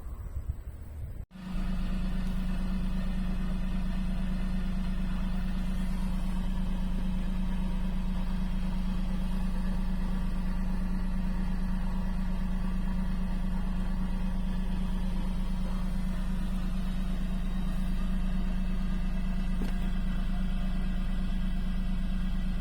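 Daihatsu Hijet kei truck's engine running steadily with an even, unchanging hum. About a second in, it cuts in abruptly after a short stretch of wind noise.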